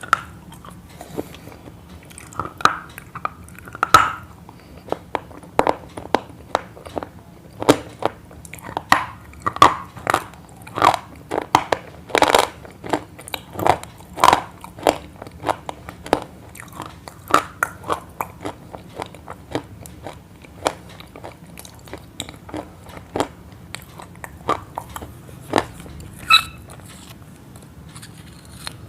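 A run of sharp crunches at an uneven pace, about one or two a second, dying away near the end.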